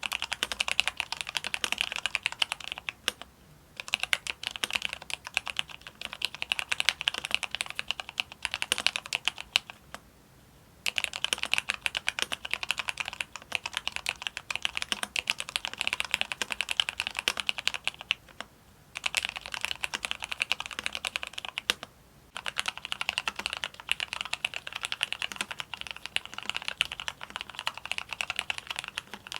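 Mechanical keyboard with linear Cherry MX Black switches being typed on fast and continuously, a dense run of key strokes broken by a few brief pauses.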